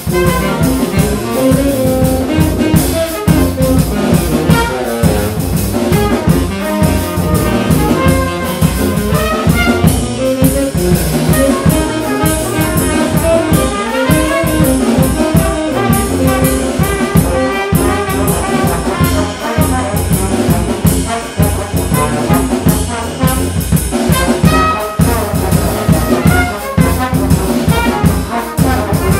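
Small brass ensemble playing a piece together: trumpets, trombones, tuba and saxophone over a drum kit keeping a steady beat.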